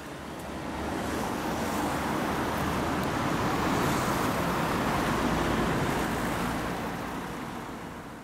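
City street traffic: cars passing close by, their engine and tyre noise swelling to a peak near the middle and fading toward the end.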